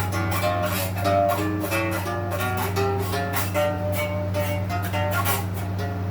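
Epiphone Les Paul Jr. electric guitar picked with its volume knob turned all the way down, so the bare strings sound unamplified: a quick run of single notes mixed with light strums. A steady low hum sits beneath.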